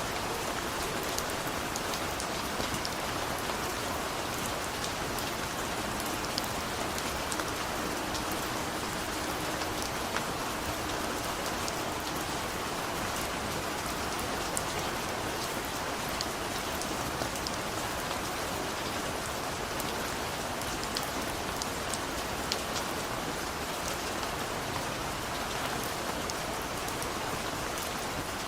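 Steady rain falling on a surface, a constant hiss with many small drop ticks.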